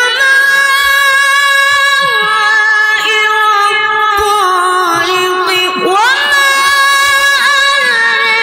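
A Quran reciter's voice holds one very high, sustained note in melodic recitation. About six seconds in it slides up to a higher note, then turns with small ornaments.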